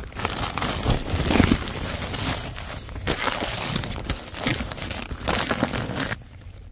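Plastic outer jacket of a flexible air duct crinkling and crackling as it is handled and pushed at close range. The crinkling stops abruptly near the end.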